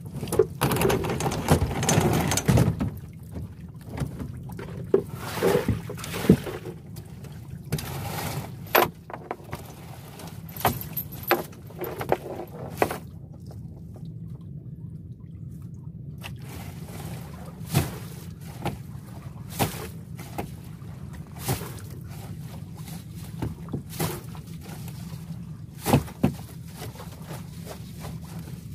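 Fish-trap netting hauled over a boat's side: water splashing and pouring off the mesh in bursts during the first several seconds, then scattered sharp knocks against the boat, over a steady low hum.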